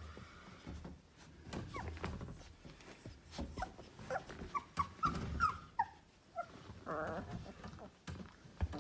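Seventeen-day-old Labrador puppies whimpering and squeaking: a run of short high squeaks from about three and a half to six seconds in, then a longer whine around seven seconds, over rustling of the bedding.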